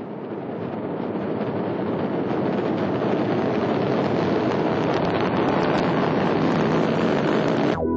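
Exhaust noise of an Ariane 5 rocket's Vulcain main engine and two solid boosters during launch: a steady rushing noise that grows louder over the first few seconds and cuts off abruptly near the end.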